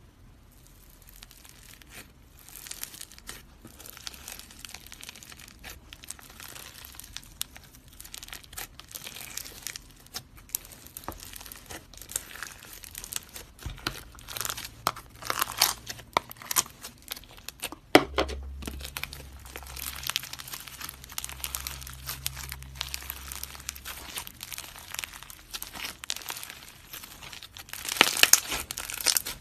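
Hands squeezing and kneading slime: a dense, continuous run of small crackles, pops and crinkles, with a louder burst near the end.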